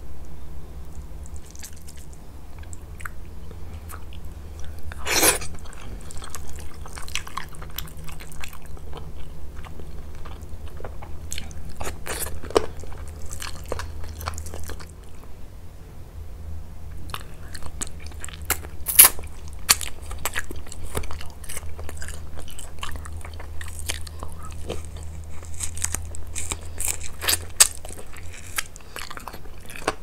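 Close-miked eating sounds: chewing and biting chicken and rice in yogurt sauce, with wet tearing of the meat by hand. Scattered sharp clicks and crackles sound throughout, the loudest about five seconds in and again near the middle.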